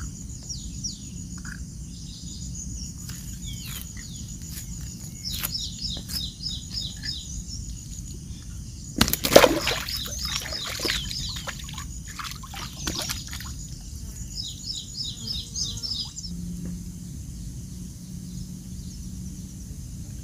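Small birds chirping in quick repeated series over a steady low outdoor background noise, with one loud burst of noise about nine seconds in.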